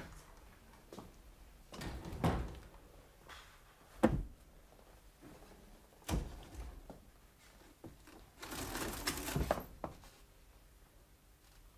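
Scattered knocks and thuds of someone moving about and handling things behind a counter, with a longer rustling shuffle and a few clicks about nine seconds in.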